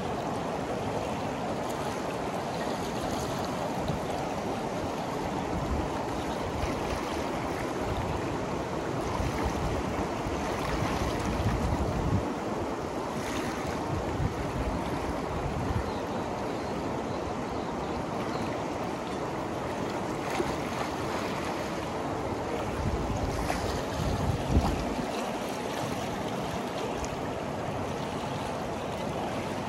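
Ganges river water rushing and lapping close to the microphone in a steady wash. Wind buffets the microphone in low rumbles a few times, loudest about 24 seconds in.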